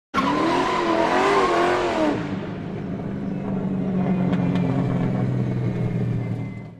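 Small vehicle engine revving with its pitch rising and falling for about two seconds, then settling to a steady idle.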